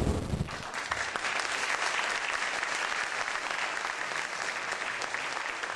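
Crowd applauding steadily: a dense patter of clapping. The tail of a loud low boom dies away in the first half second.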